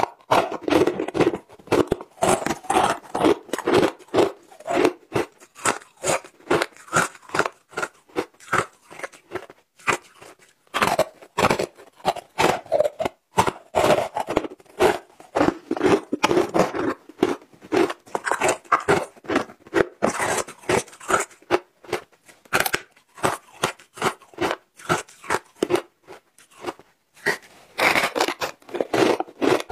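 Chunks of matcha-dusted shaved ice being bitten and chewed, a quick, continuous run of crisp crunches broken by a few short pauses.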